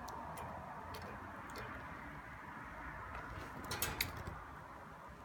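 Faint scattered clicks and taps from a pet budgie pecking about its cage, over a steady room hiss; two sharper clicks come close together about four seconds in.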